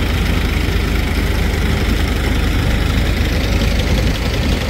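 Tractor engine running steadily under load as it pulls a potato digger through the rows: a dense, continuous low rumble.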